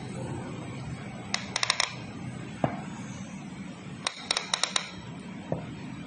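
Manual hydraulic AC hose crimper being hand-pumped: its lever and pump give two quick runs of sharp clicks, about one and a half and four seconds in, with a duller single knock between them and another near the end.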